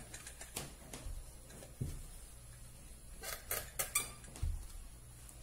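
Clothes iron pressing and sliding over a fabric mask piece on an ironing board, with light scattered clicks, a quick cluster of clicks a little past the middle and a low thump near the end as the iron is lifted and handled.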